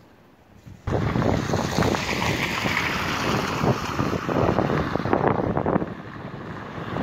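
Loud, uneven wind noise buffeting a phone's microphone, starting abruptly about a second in and cutting off suddenly.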